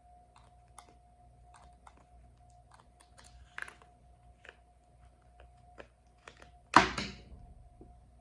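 Small plastic and rubber RC fuel tank parts handled by hand: a scattered run of light clicks and taps, with one much louder clatter about seven seconds in as a part is set or dropped down.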